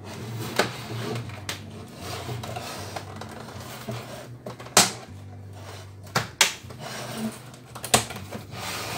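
Plastic snap-in latches of an LCD monitor's bezel cracking loose as the front frame is pried off the Samsung SyncMaster 732N. The sharp snaps come irregularly: the loudest is about five seconds in, a quick pair follows a little after six seconds, and another comes near eight seconds. The snapping is normal for these clips and does not mean anything is breaking.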